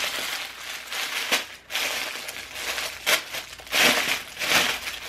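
Clear plastic garment bag crinkling and rustling in irregular bursts as clothing is pulled out of it.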